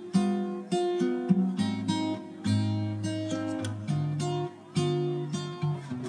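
Background music: acoustic guitar playing chords, with a new chord or note about every half second.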